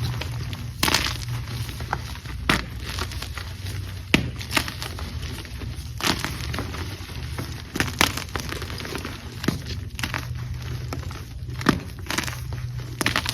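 Blocks of gym chalk being crushed and crumbled, with irregular sharp crunches and snaps over a low steady hum.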